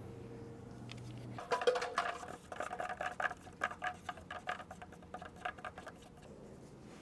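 Stick scraping and tapping around a plastic cup as freshly measured two-part epoxy and its catalyzer are mixed: a quick, irregular run of scratchy strokes starting about a second and a half in and dying away near the end.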